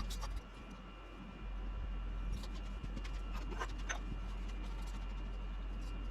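Steady low machine hum in a workshop, with a few light clicks and taps about two to four seconds in.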